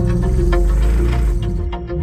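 Music with heavy, steady bass playing through a car audio system's Solo-X 15-inch subwoofers. The owner says it sounds like crap, and blames the smaller subs leaking air through the missing corner screw holes.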